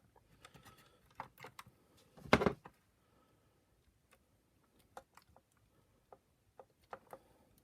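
Small clicks and taps of plastic vacuum power-nozzle parts and wiring being handled while it is opened up, with one louder clatter about two and a half seconds in.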